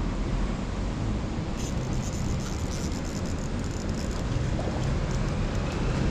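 Steady rush of a fast-flowing river, with wind rumbling on the microphone.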